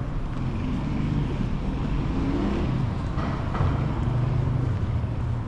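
Street traffic: a motor vehicle running close by with a steady low engine rumble.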